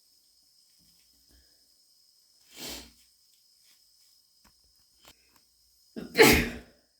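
A woman sniffles once, a short noisy breath through the nose, and about six seconds in lets out one loud allergy sneeze with a brief catch of breath just before it. The sneezing and sniffling come from a cat allergy.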